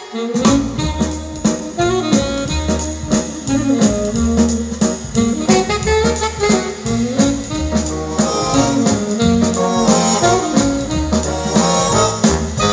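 Music with a steady repeating bass line, played loud through a pair of Bose 101 MMG speakers as a listening test of their sound.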